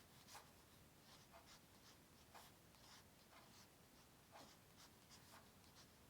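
Faint, short scratching strokes of a drawing tool on paper, about two a second, irregular and unhurried.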